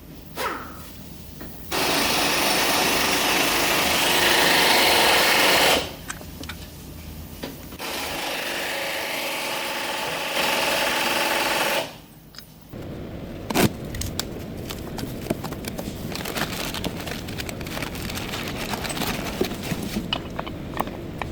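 A power tool runs in two steady bursts of about four seconds each, the first louder, while bolts are worked on during a transmission mount replacement. It is followed by a run of light metal clinks and taps.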